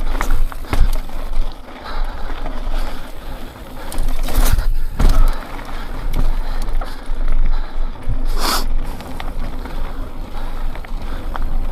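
Mountain bike rolling over a rocky trail: tyres crunching on rock, the bike rattling and knocking over bumps, with wind buffeting the microphone. A brief hiss about eight seconds in.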